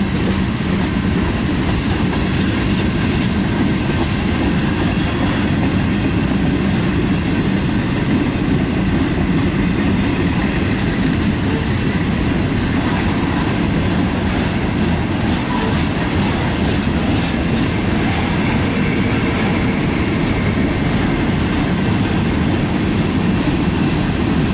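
Freight cars of a manifest train rolling past close by: a steady, loud rumble of steel wheels on the rails.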